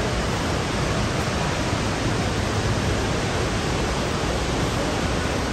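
Steady, even rushing of water from an indoor waterfall, an unbroken hiss with no rise or fall.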